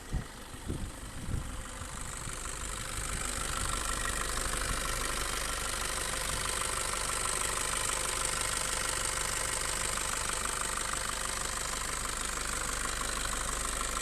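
Nissan Patrol GU Y61's ZD30 3.0-litre four-cylinder turbodiesel running, with a few uneven thumps in the first second and a half. It grows louder over the next couple of seconds, then settles into a steady idle.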